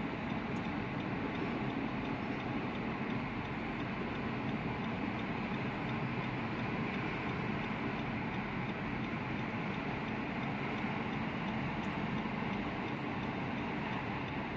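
Freight train of autorack cars rolling past a grade crossing, a steady rumble of wheels on rail, heard from inside a car, with a faint regular ticking underneath.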